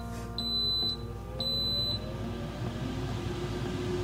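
Instant Pot Duo Crisp air fryer lid beeping twice in a high pitch after Start is pressed, then its fan motor spinning up, rising in pitch into a steady hum as air frying begins.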